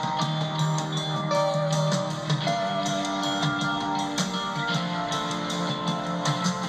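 Instrumental background music led by guitar, with a steady drum beat.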